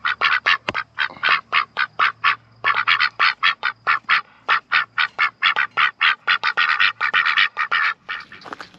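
Pekin ducks quacking loudly and rapidly, about five quacks a second, with a short pause about two and a half seconds in.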